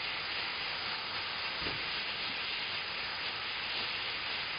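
Steam mop hissing steadily as it puts out steam, with a brief low thump about a second and a half in.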